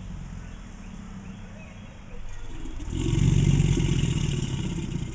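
American alligator growling, a deep low rumble as part of its courtship display. It is moderate at first, swells to its loudest about three seconds in, then eases off near the end.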